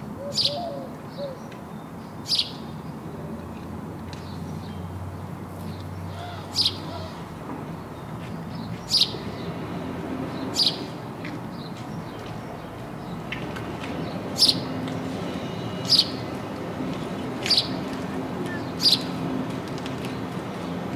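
A lone house sparrow chirping: single short, sharp chirps, one every second or few seconds at uneven intervals.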